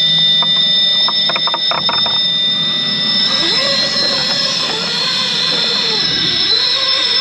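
Electric drivetrain of a scale RC rock crawler whining as it climbs rock, its pitch wavering with the throttle from about three seconds in, with a few sharp clicks in the first two seconds.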